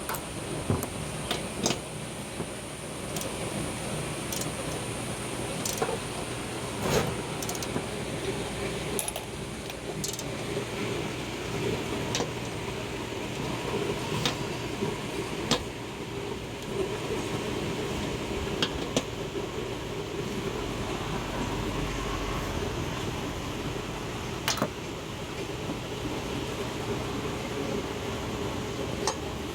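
Irregular metallic clicks and clinks of hand tools working on a steel ride-on mower deck, over a steady background hum.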